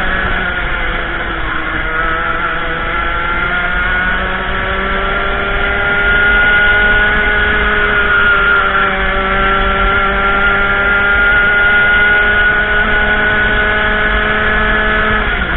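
Racing kart engine heard from on board under race load. It drops in pitch at the start, climbs, eases briefly about halfway, then rises steadily along a straight before falling sharply right at the end as the driver lifts off.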